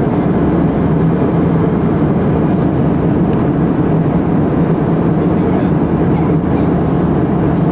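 Steady cabin noise of a jet airliner in flight: an even roar of engines and airflow, heaviest in the low range, with a faint steady hum and no changes.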